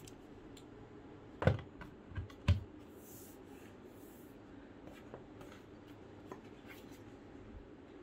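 Three light knocks within about a second as a phone is handled and seated in a USB-C hub dock on a desk, followed by faint rubbing and small clicks of handling.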